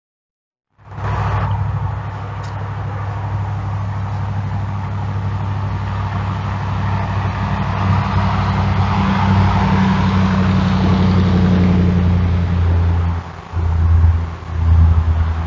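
An engine running steadily with a low hum, its level dipping and surging a few times near the end.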